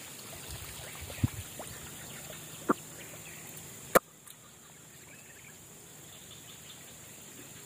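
Swamp-forest ambience with a steady high-pitched insect drone, broken by a few sharp clicks. The loudest click comes about four seconds in, after which the background drops and is quieter.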